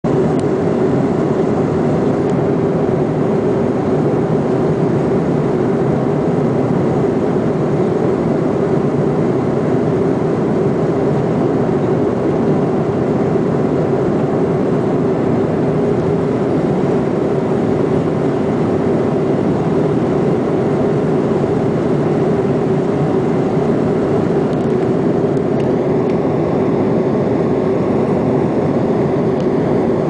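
Jet airliner cabin noise in cruise: the steady rush and drone of the engines and airflow heard from inside the cabin, with a constant low hum running under it.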